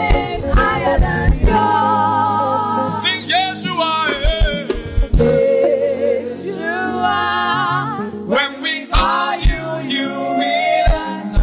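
Gospel worship singing over instrumental backing with a drum beat. A voice holds long notes with a wavering pitch.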